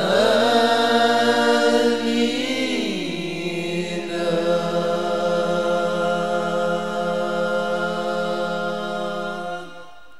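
Unaccompanied male vocal group singing a sholawat chant into microphones, drawing out long held notes. The pitch steps down about two and a half seconds in, and the last note is held until it stops shortly before the end.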